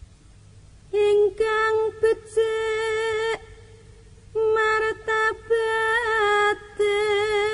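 A solo voice singing Javanese tembang macapat, holding long, drawn-out notes on much the same pitch in phrases broken by short pauses. Near the end it settles into a held note with a slow, even vibrato.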